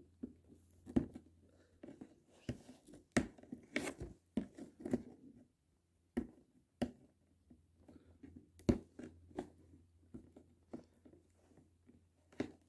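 Fingernails picking and scratching at tape on a cardboard box: irregular small clicks and scratches.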